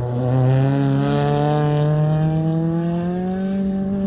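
Rally car engine under full throttle, changing gear right at the start and then rising steadily in pitch as the car accelerates past.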